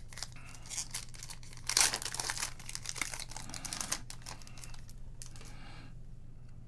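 A foil trading-card pack being torn open and its metallic wrapper crinkled as the cards are pulled out. It is loudest about two seconds in and dies away after about four seconds.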